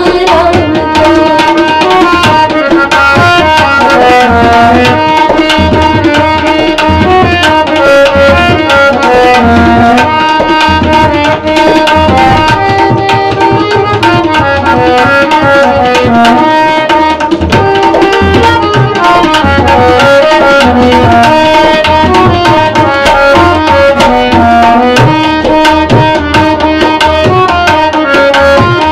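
Tabla drumming a steady rhythmic accompaniment, with low bass-drum strokes and sharp treble strokes, under a melody of held notes in a Hindi song.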